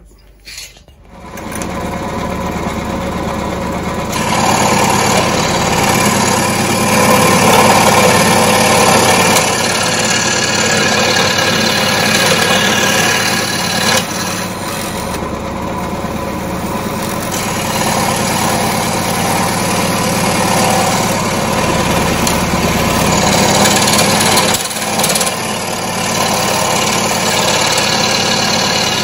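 Scroll saw running, its fine blade cutting through 6 mm aluminium tube; it starts about a second in and runs steadily.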